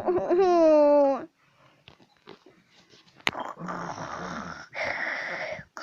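A drawn-out whining voice for about a second, then quiet. After a click, a sleeping cat snores: two raspy breaths of about a second each, with a low buzz under them.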